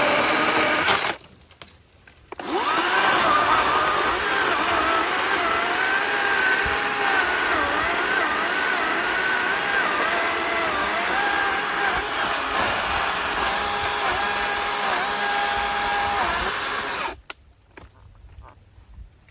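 DeWalt 60-volt brushless cordless chainsaw running. It stops about a second in, starts again a second later, then cuts through thick buckthorn wood, its whine dipping and wavering in pitch as the chain loads up, until it stops near the end.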